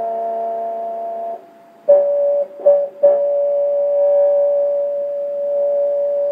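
Steady electronic musical tones: a held chord that stops about a second and a half in, then after a short gap two brief notes and a long single held note. The tones are sounded to drive the sound visualizer's balloon membrane and its mirror, which makes the laser patterns.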